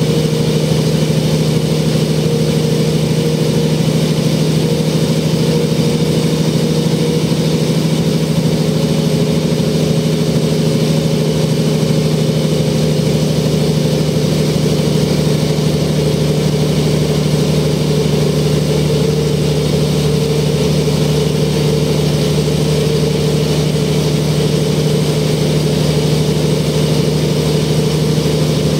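Mercedes OM447h inline-six diesel engine of a Mercedes O405N city bus, heard from inside the passenger cabin, running at a steady pitch with an even low hum and no gear changes.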